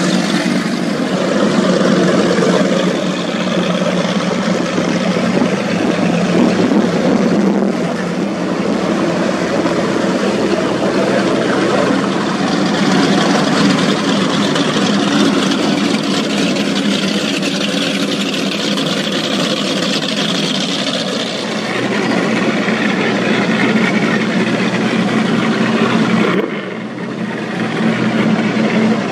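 Powerboat engines running at cruising speed, a steady loud drone with hiss of water over it, dipping briefly near the end.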